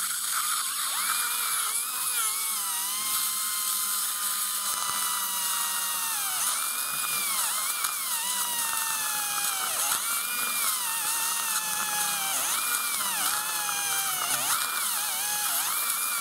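High-speed dental handpiece running a bur through an impacted lower wisdom tooth to section it, a continuous high whine over a steady hiss. The pitch sags and recovers again and again as the bur bites into the tooth and lets off.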